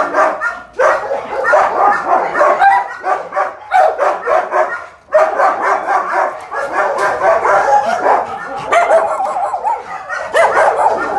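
Many shelter dogs barking and yapping at once in a continuous overlapping chorus, with brief lulls about a second in and about five seconds in.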